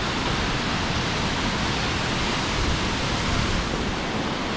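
Large waterfall, about 100 feet high, falling onto its pool: a steady, unbroken rush of water.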